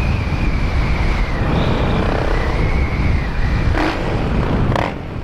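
Honda Twister 250 motorcycle engine running under way through a Dore aftermarket exhaust whose silencer has freshly repacked glass-wool packing. The sound is a steady, loud rumble that eases off slightly near the end.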